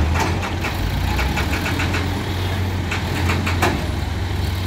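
Heavy diesel machinery engine running steadily with a low hum. Over it come three bursts of rapid clicking or rattling: just after the start, about a second in, and again past three seconds.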